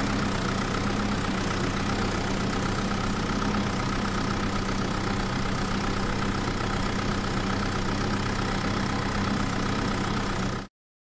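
Vehicle engine idling steadily, one unchanging hum that cuts off abruptly near the end.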